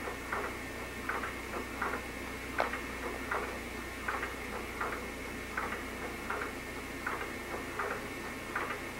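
Baby swing's mechanism ticking steadily as it swings, with a click about every three-quarters of a second.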